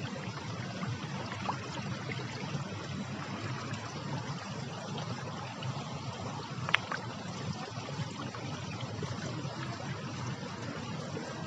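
Shallow water running steadily over a stone channel in a garden water feature, with one sharp click about two-thirds of the way through.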